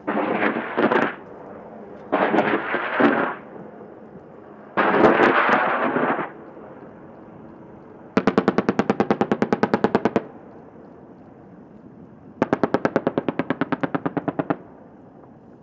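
AH-64 Apache's 30 mm M230 chain gun firing five bursts. The first three are shorter and run together; the last two last about two seconds each, with each round distinct at roughly ten a second.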